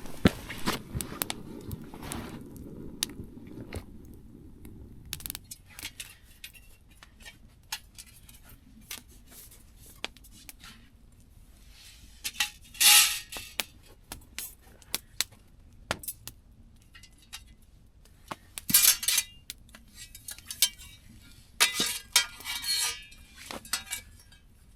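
Scattered light clinks and clicks of small metal gear being handled, with a few louder rustling bursts in the middle and near the end.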